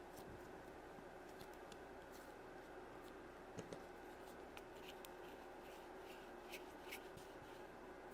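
Near silence with faint, scattered clicks and light taps of plastic Play-Doh toy tools being handled, over a low steady hum.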